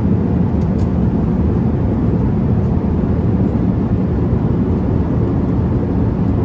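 Steady cabin noise of an Airbus A380 in flight: an even, low rush of airflow and engine noise heard inside the passenger cabin.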